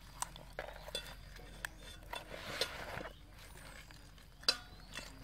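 Hands rubbing and washing a whole scaly fish in a little water in a plastic basin: wet rubbing and sloshing with scattered small clicks and knocks, and a sharper knock about four and a half seconds in.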